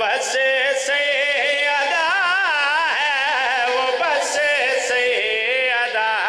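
A man singing devotional qasida verse in one long melodic line, with wavering, ornamented held notes and slow pitch glides, amplified through a microphone.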